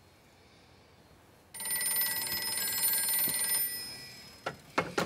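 Vintage black rotary desk telephone's bell ringing, starting about a second and a half in and lasting about two seconds before fading. Near the end come a few sharp knocks as the handset is lifted off its cradle.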